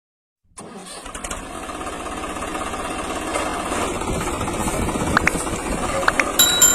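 An engine running with a rapid low chugging, starting about half a second in and slowly growing louder. A few short chirps sound near the end, and a steady high tone starts just before it ends.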